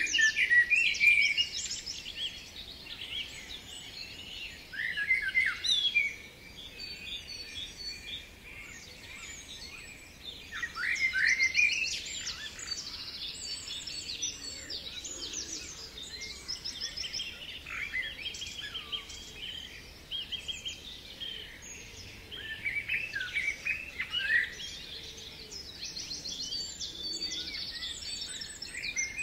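A chorus of songbirds singing and calling at once, with many overlapping chirps and rapid trills and louder phrases coming every few seconds.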